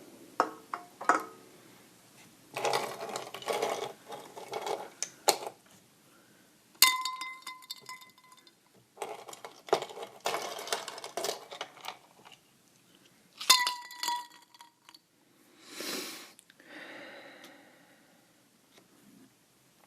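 Ice cubes rattling and clinking against a glass. Two sharper clinks, about 7 and 13.5 seconds in, leave the glass ringing briefly.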